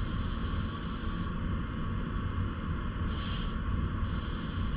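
Air hissing out of a Fox Float X rear air shock's valve in spurts, let out slowly so that the negative air chamber empties as well. The hiss breaks off about a second in, comes back briefly near the middle and again towards the end.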